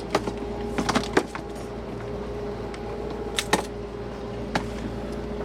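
Steady low drone of the trolling charter boat's engine, with a handful of sharp clicks and knocks on the boat, several of them about a second in and a cluster around three and a half seconds in.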